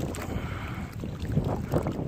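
Wind buffeting the microphone: a rough low rumble that rises and falls unevenly.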